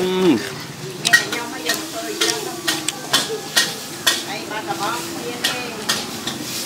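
Noodles stir-frying in a wok: a spatula scraping and knocking against the pan about twice a second over the sizzle of frying.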